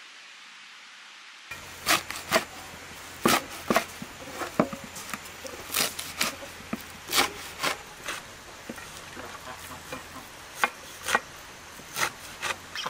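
Fresh green herbs being torn apart by hand and their stems snapped over a metal tray: irregular sharp snaps with soft rustling, about two a second. A steady soft hiss comes before them for about the first second and a half.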